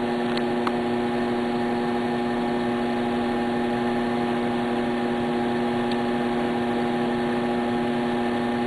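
Steady, even electrical hum of running mains-powered lab equipment, a machine hum with a hiss of moving air beneath it.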